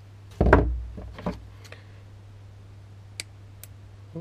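Hand tools handled on a wooden workbench: a heavy knock about half a second in as a pair of crimpers is set down, a lighter knock, then two short sharp clicks near the end as scissors snip the fishing line.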